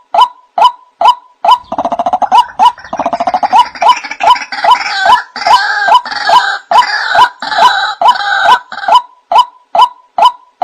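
White-breasted waterhen calling: a single note repeated steadily about twice a second, with a faster, harsher chattering with higher notes over it from about a second and a half in until near the end.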